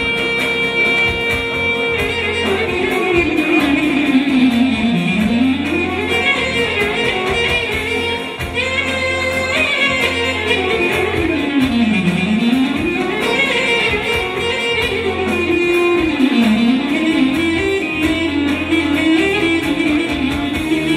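Instrumental music from a song's backing track, its lead melody sliding up and down in long swoops over a steady beat.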